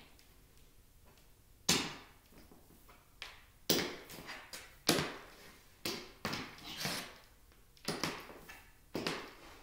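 Metal taps on heeled loafer tap shoes clicking against a wooden floor, one or two sharp clicks with each slow walking step, irregularly spaced and starting about two seconds in.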